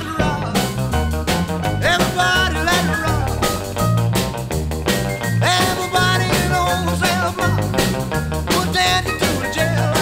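Up-tempo background music with a steady drum beat and a bass line.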